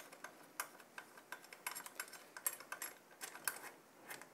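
Faint, irregular light clicks and ticks, a few a second, as the four mounting caps are screwed by hand onto the threaded bolts to hold down the CPU cooler's retention brackets.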